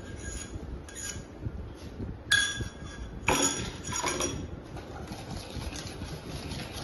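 Stainless steel kitchenware clinking: a sharp ringing clink about two seconds in and another a second later with a brief clatter, then a wire whisk beating a thin egg-and-milk custard mixture in a steel bowl, with rapid light ticking near the end.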